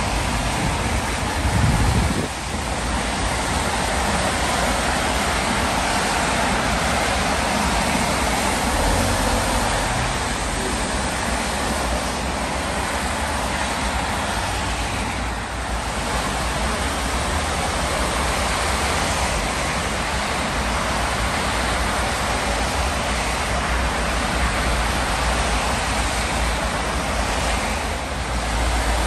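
Steady motorway traffic on a wet road: the continuous hiss of tyres on rain-soaked tarmac as cars, vans and lorries pass.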